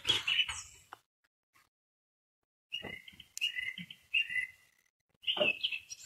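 Nightingale singing in short phrases of clear, pitched notes, with dull thuds near the start and again near the end.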